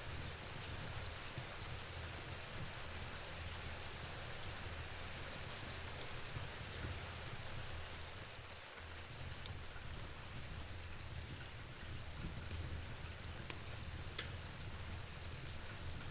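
Steady rain falling, an even hiss with a low rumble beneath, and scattered sharp ticks of individual drops.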